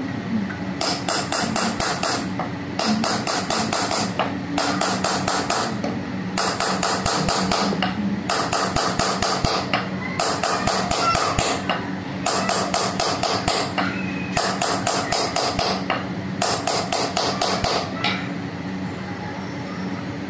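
Small metalworking hammer tapping rapidly on a punch against silver sheet, repoussé embossing work, in runs of quick strikes about a second and a half long with short pauses between.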